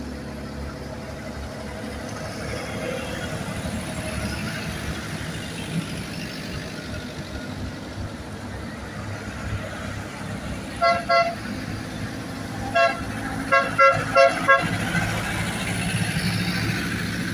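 A tractor engine running steadily as the tractor approaches and passes close by. Partway through, a horn gives about seven short toots in three quick bursts, the loudest sounds here.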